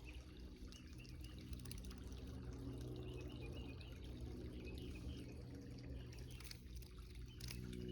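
Faint trickling of creek water running steadily, with a low rumble underneath.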